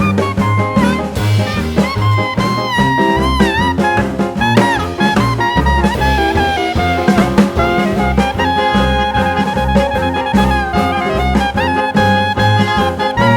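Background jazz music with brass and a steady swing beat.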